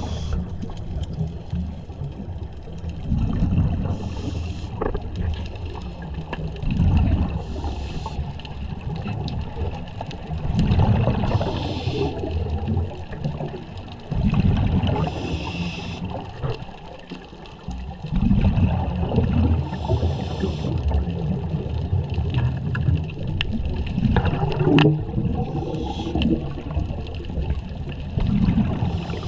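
Scuba divers' exhaled bubbles from their regulators, heard underwater: low bubbling bursts recurring every three to four seconds, some with a higher hiss.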